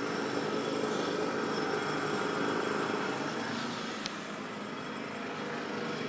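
Pneumatic jackhammer hammering steadily, a dense rapid pounding that comes in suddenly at the start and keeps on evenly.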